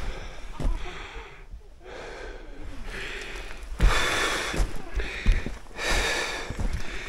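A climber's heavy, close breathing: a few long breaths, with a few soft knocks of movement on rock.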